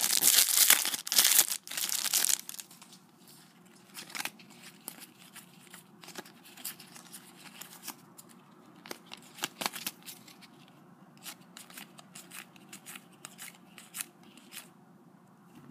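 Foil trading-card packet torn open, loud tearing and crinkling for the first two seconds or so. Then soft scattered clicks and rustles as the cards are slid and flicked through by hand.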